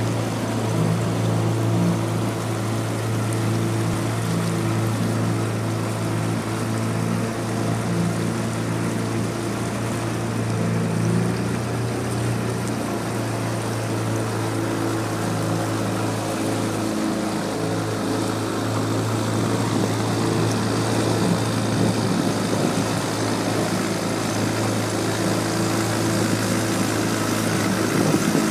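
Suzuki outboard motor running at a steady speed, driving a boat across open water, with the rush of the wake and water under it.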